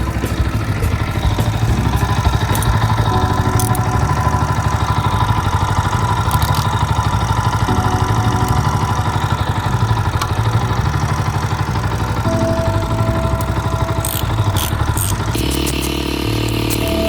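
Yamaha MT-125's single-cylinder four-stroke engine idling steadily.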